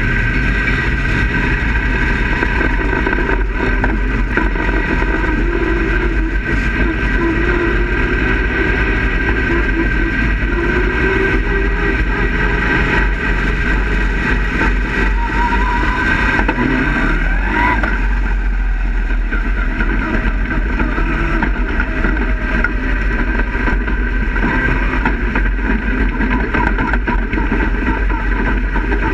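Dirt-track race car engine running steadily, heard from inside the cockpit as the car rolls around the track. Its pitch rises and falls a little about halfway through.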